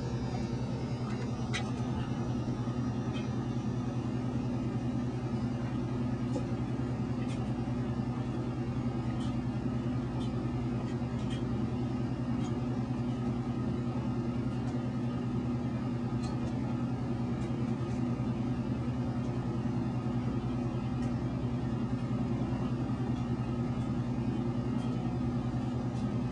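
A steady low hum that holds an even pitch and level, with a few faint, scattered clicks.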